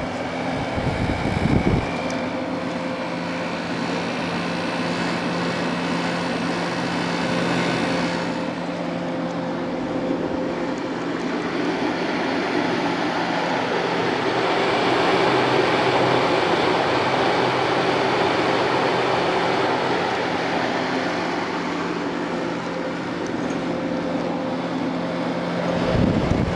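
1970s Thomas Edison 6000 BTU window air conditioner running in cooling mode: a steady compressor hum under the rush of its fan, the sound of a compressor working normally. A brief knock comes about a second and a half in, and the air rush grows louder from about a third of the way through.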